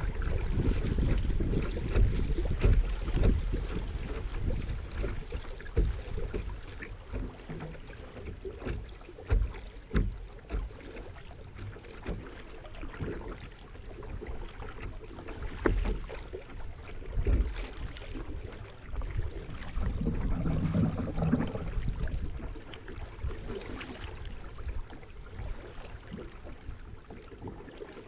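River water rippling and lapping close to a kayak's hull as it moves down a riffled current, with a low, uneven wind rumble on the microphone. Short knocks break in now and then.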